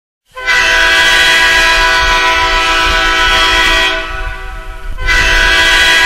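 Hockey goal horn sounding loudly, with several steady tones at once. It starts abruptly, drops away for about a second near the end, then sounds again at full strength.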